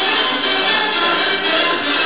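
Music playing from the loudspeaker of a Pye PE14T Merlin three-band radio receiving a broadcast.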